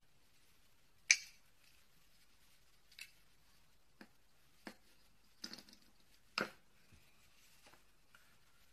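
Small sharp clicks and taps of a coin-cell battery being pried out of a Mini car key fob's holder with a small screwdriver: one loud click about a second in, then about half a dozen quieter clicks.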